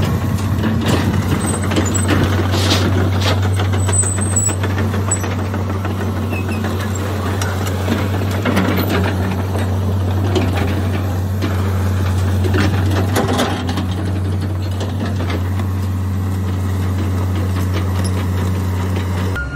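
John Deere 200LC excavator's diesel engine running steadily close by, with scattered knocks and clanks over it.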